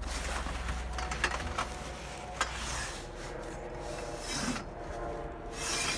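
Rubbing and scraping of stored goods being handled and shifted, with scattered light knocks.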